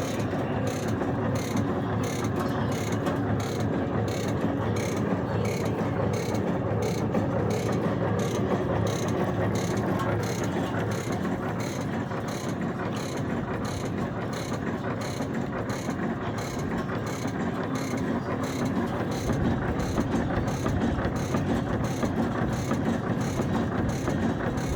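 Vertical food-cutting machine running steadily, with a regular mechanical clacking about twice a second over a continuous machine noise.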